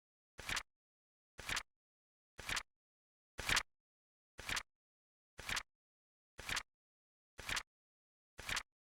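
Flip clock's flap sound effect clicking once a second, a short crisp flip each time with silence between, nine in all, one near the middle a little louder.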